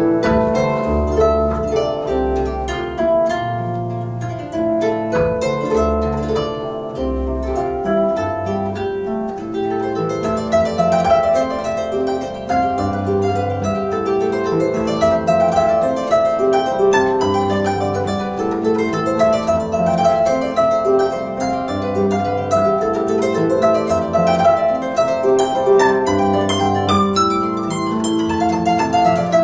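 Celtic lever harp played solo: plucked melody and chords over low bass notes, the playing growing fuller and busier about ten seconds in.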